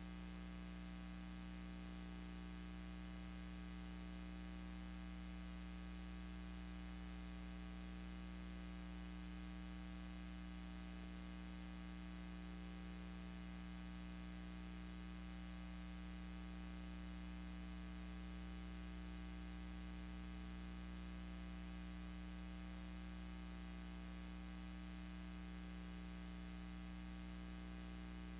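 Steady electrical hum with a layer of hiss, unchanging throughout: the noise floor of a silent archival film transfer, with no sound from the aircraft on screen.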